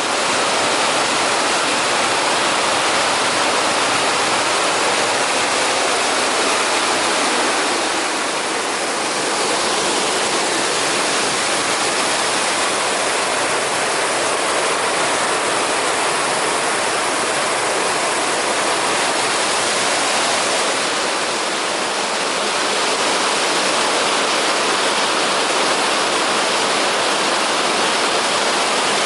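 River waterfall: water pouring and rushing, a dense steady noise.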